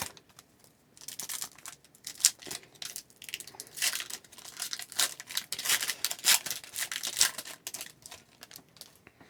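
Foil wrapper of a hockey card pack being torn open and crinkled, irregular crackling that thins out near the end.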